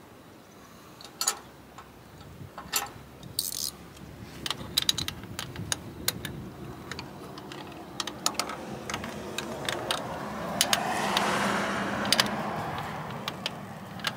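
Irregular metal clinks and clicks of hand tools and bolts against the engine's pump fittings. A louder rushing sound swells and fades about ten to thirteen seconds in.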